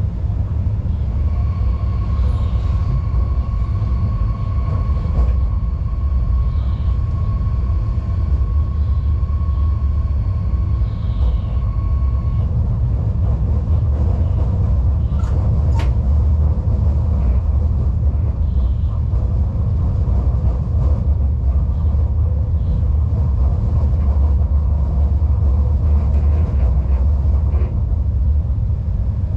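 Class 187 electric locomotive under way, heard from inside the driver's cab: a steady low rumble of wheels and running gear on the track. A steady high whine sounds over it for the first dozen seconds, and there is one sharp click about 16 seconds in.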